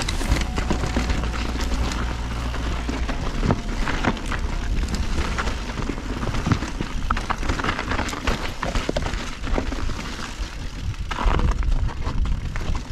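Mountain bike riding down a rough rocky dirt trail: tyres crunching over dirt and stones and the bike rattling over bumps, with wind rumbling on the handlebar camera's microphone, heaviest about eleven seconds in.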